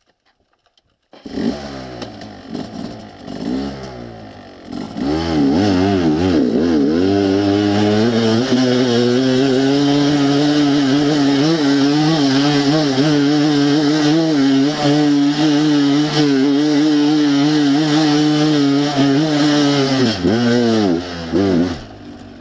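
Enduro dirt bike engine revving in short blips, then pulled up to high revs and held near full throttle for about fifteen seconds as the bike climbs a hill, with the revs dropping and wavering near the end.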